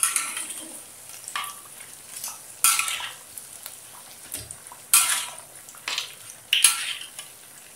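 Metal spatula scraping and clinking against a metal wok and a wire spider strainer as donuts are lifted out of deep-frying oil, in about six short strokes, over a steady sizzle of the hot oil.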